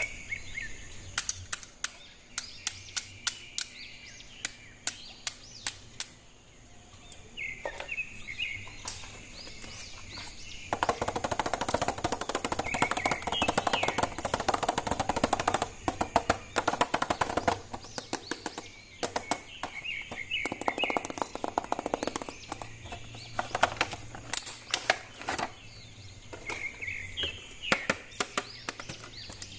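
Repeated sharp plastic clicks and rustling from a toy action figure being handled and snapped together, with birds chirping in the background several times.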